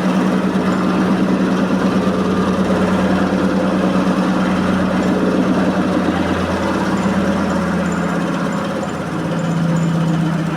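Electrolux 15 kg commercial washing machine in its final high-speed spin, the drum spinning with a loud steady hum and heavy rattling vibration from a badly unbalanced load.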